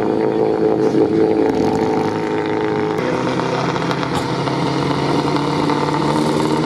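Off-road vehicle engines running under load, a steady engine note that shifts lower about three seconds in.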